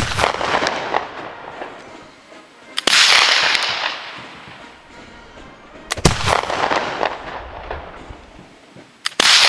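Flintlock Baker rifle firing black powder, four shots about three seconds apart. Each is a sharp report with a long echoing tail.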